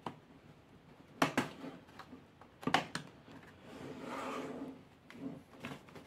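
Orange plastic pry tool working along the seam of a laptop's plastic case: sharp plastic clicks and taps, several in pairs, with a short scraping rub about four seconds in.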